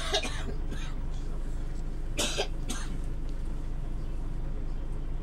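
Steady low drone of a Scania OmniLink city bus running, heard from inside, with a person coughing twice, once right at the start and again about two seconds in.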